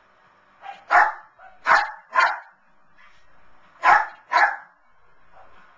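Lhasa Apso barking in excitement: five short sharp barks, three in quick succession about a second in, then two more close together near four seconds.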